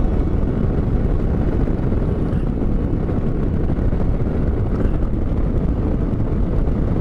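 Scooter riding along at speed: a steady low rumble of wind on the microphone mixed with engine and road noise, with no distinct engine note.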